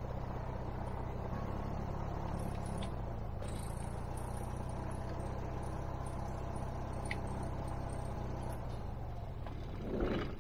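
Cessna 172N's Lycoming O-320 four-cylinder engine idling steadily on the ground, heard from inside the cockpit. Near the end it surges briefly as it is shut down.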